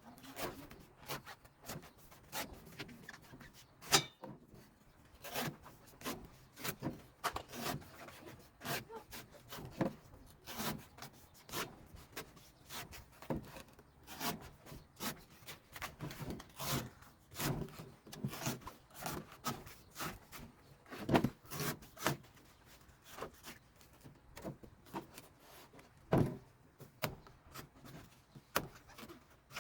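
Knife working a coconut: a long run of irregular taps and scrapes, several a second, with a few sharper knocks standing out.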